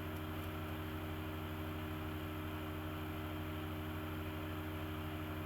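Steady low hum with a layer of hiss, unchanging throughout: room background noise with no distinct event.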